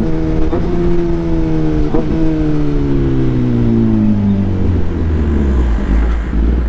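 Superbike engine with an aftermarket Arrow 3/4 exhaust, its revs falling steadily as the throttle is closed and the bike slows. About four and a half seconds in, it settles into a low, uneven rumble.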